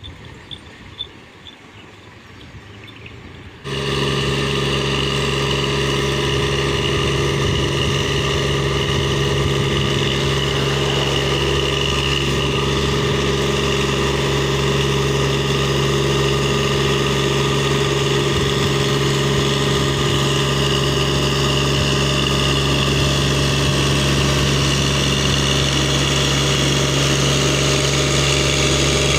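Engine running at a constant speed. It starts abruptly about four seconds in, after a quieter stretch with a few faint clicks, and then holds loud and unchanging.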